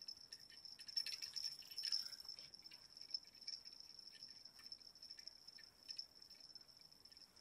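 Faint, steady high-pitched trilling of insects such as crickets, with scattered light clicks and rattles, busiest about one to two seconds in.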